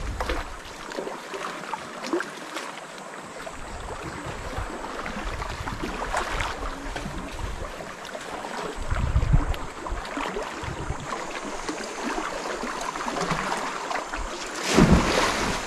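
Wind buffeting the microphone over a steady wash of seawater, with louder gusts about nine seconds in and near the end.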